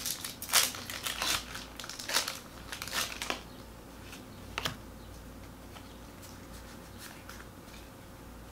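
Foil wrapper of a Pokémon trading-card booster pack crinkling in a quick run of sharp rustles as it is handled and opened, with one more crackle a little past halfway, then quiet room tone.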